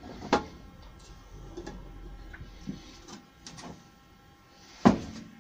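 Metal paint pot and tins being handled on a workbench: a few separate clicks and knocks, the loudest near the end, over a faint steady hum.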